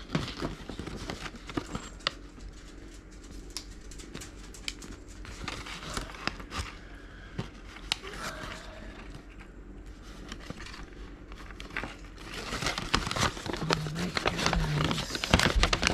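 Hands handling crinkly packaging and a paper collector's guide: irregular crinkling and rustling with small clicks and taps. The crinkling grows louder over the last few seconds.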